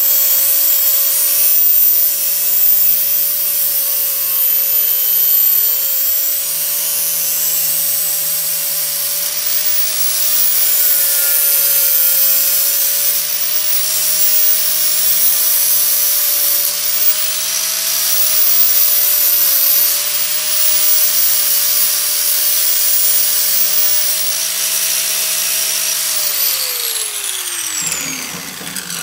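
Hand-held power grinder running steadily as it grinds the edge of a metal motorcycle chain guard down to fit, its motor pitch wavering slightly under load with a steady hiss of grinding. About 26 seconds in it is switched off and winds down with a falling whine.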